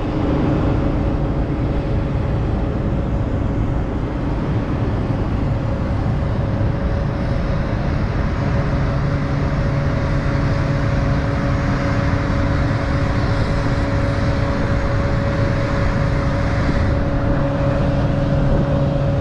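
Steady machine drone on an airport apron: a constant low hum with a rushing hiss over it, unchanging in pitch and level throughout.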